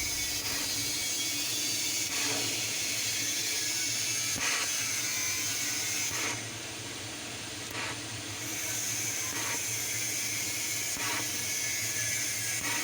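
TIG welding arc running with a steady hiss over a low hum, faint ticks every second or two. The sound drops for a couple of seconds midway, then comes back.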